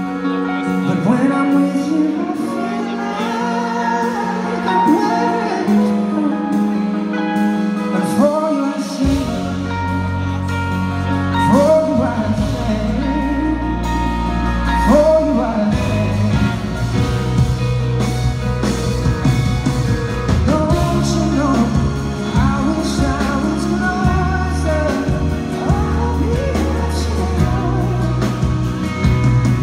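Live band playing a soul-pop song: electric guitars with wordless singing over them. Deep bass comes in about nine seconds in and carries on under the rest.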